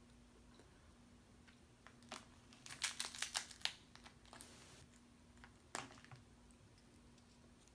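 Boiled crab leg shells cracked and snapped apart by hand: a single crack, then a quick run of sharp snaps about three seconds in, and one more crack near the end.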